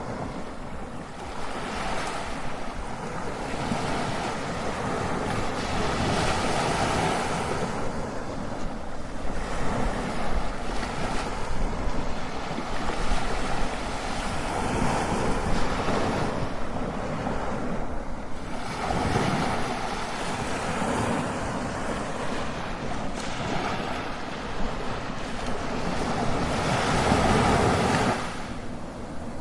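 Strong ocean surf, with waves breaking one after another. The wash swells and falls back every several seconds.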